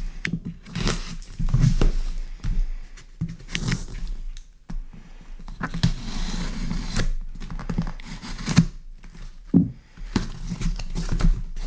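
A knife slitting the packing tape on a cardboard box: irregular scraping and cutting strokes, with occasional knocks of the box against the desk.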